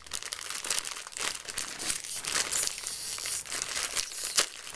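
Plastic instant ramen wrapper crinkling and rustling as it is handled, with a sharp crackle about four seconds in.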